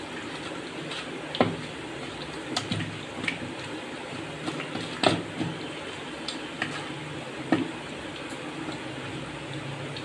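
A hand mixing chicken leg pieces through a wet yogurt-and-spice marinade in a steel bowl: squelching, with several sharp knocks of the meat against the bowl, over a steady low hiss.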